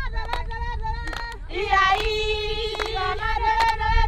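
A group of high voices singing together in held, wavering notes, joining in fuller about a second and a half in, with sharp taps scattered through the song and a low rumble underneath.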